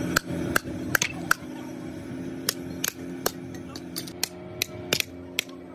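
Hand hammer striking and breaking cast-iron scrap parts: about a dozen sharp metallic strikes at an uneven pace, over a steady low hum.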